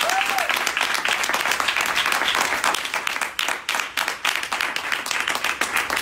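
Audience applauding: a roomful of people clapping.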